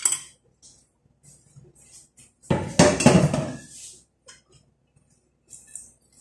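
Kitchen metalware clattering: a sharp clink at the start, light clinks, then a louder clatter lasting about a second and a half, starting some two and a half seconds in, typical of a metal cooking pot and spoon being handled and set down.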